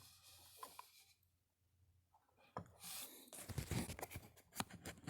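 Faint rubbing and small sharp clicks of fingers turning a pocket watch's pulled-out crown to advance the date. The clicks and handling noise start about halfway through and come irregularly.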